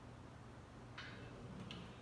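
Steady low hum of a fan running, with two faint short clicks about a second apart.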